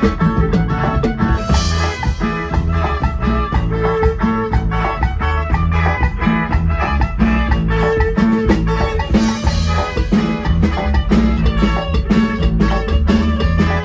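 A dance band playing a chilena, a Latin dance tune, through PA speakers, with a steady drum beat and a strong bass.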